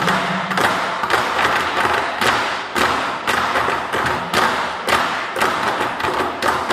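24 Seasons Drum troupe on large Chinese barrel drums in a quiet passage: the deep drum beats stop just as it begins, leaving sharp wooden drumstick clicks in an uneven rhythm, roughly two a second.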